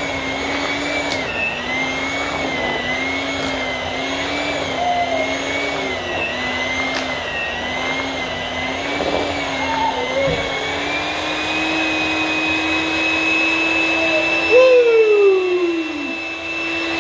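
Electric hand mixer beating boiled potatoes with milk and butter in a steel pot. The motor's hum wavers up and down about once a second as the beaters drag through the potatoes. After about ten seconds it runs steadier and a little higher in pitch as the mash turns creamy.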